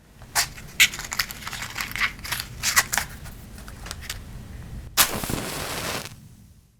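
Matchstick struck against a matchbox's striker, several sharp scratches in a row, then a loud strike about five seconds in and a hissing flare for about a second as the match catches, fading out.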